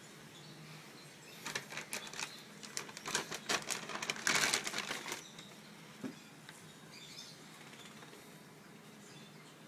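Plastic cereal bag crinkling and rustling in a run of quick crackles for a few seconds as it comes off a dog's head. One short knock follows, then only faint room sound.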